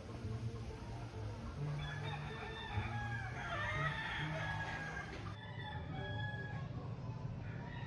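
Roosters crowing back and forth, the longest crow about three to four seconds in.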